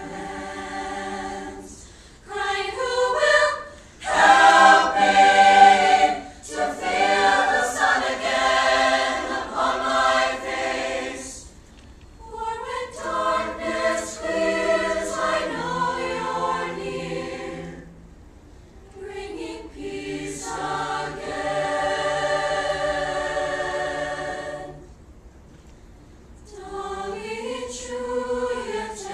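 Mixed choir of girls' and boys' voices singing, in several phrases with brief pauses between them.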